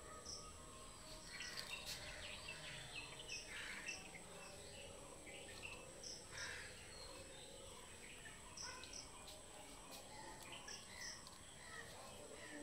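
Birds chirping faintly: many short, high calls scattered throughout over a steady background hiss.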